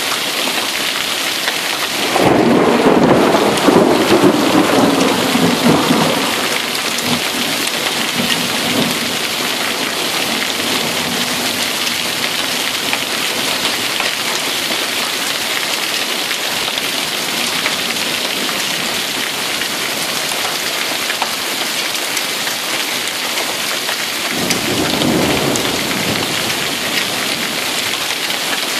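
Rain from a hailstorm pouring down steadily. Two rolls of thunder sound over it: a loud one starting about two seconds in and rumbling for about four seconds, and a shorter one near the end.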